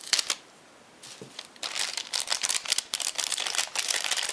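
Plastic anti-static bag crinkling as it is handled and the hard drive is taken out of it: a brief rustle at the start, a short pause, then continuous crinkling from about a second and a half in.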